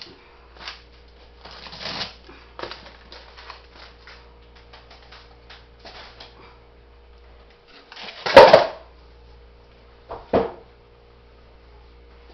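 Frozen food packages being handled while a chest freezer is emptied: a run of crinkling rustles and light knocks, with a loud knock and clatter about eight seconds in and a smaller one about two seconds later, over a faint steady hum.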